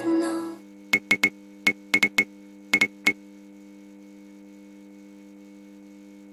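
Neon-sign sound effect: a steady electrical hum, broken between about one and three seconds in by a quick run of about nine sharp flickering clicks as the tubes light, then holding as an even buzz.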